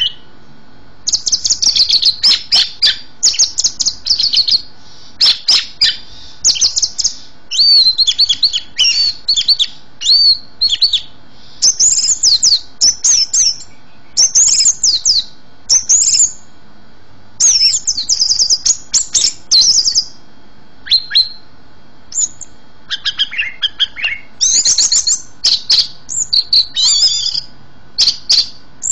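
A songbird singing in short, rapid phrases of high chirps, trills and whistles, each phrase a second or two long with brief pauses between. This is a tutor recording (masteran) of the kind played to train caged songbirds.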